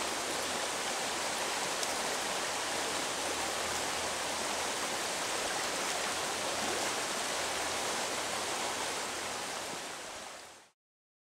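Creek water running steadily over a riffle, an even rushing noise that fades out near the end.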